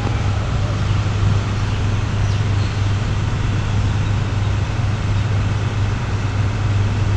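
A steady low hum under a constant rushing background noise, unchanging throughout.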